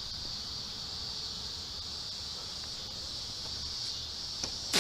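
Steady high-pitched chirring of insects such as crickets or cicadas. A louder, noisier sound starts just at the end.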